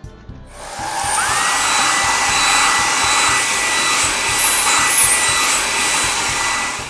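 Car-wash blower dryer sound effect: a loud hissing rush of air starts about half a second in. A whine rises quickly and then holds steady, and the sound cuts off near the end.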